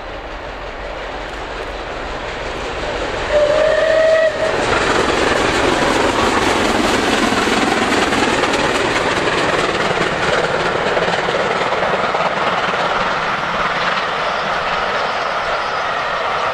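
Steam locomotive approaching at speed, building in loudness, gives one short whistle blast about three seconds in. Then the engine and its train of carriages pass close by, loud and steady.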